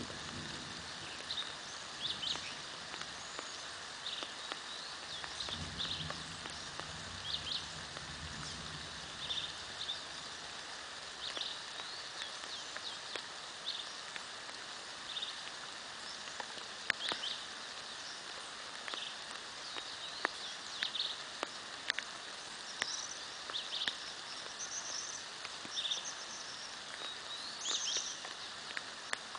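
Birds calling over and over in short chirps above a steady hiss of light rain. A brief low rumble sounds about five to eight seconds in.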